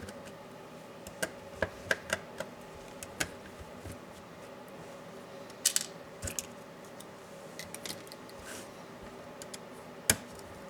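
Scattered small clicks and taps of hand tools and laptop parts being handled during disassembly, with a short scraping rustle a little past the middle and the sharpest click near the end, over a faint steady hum.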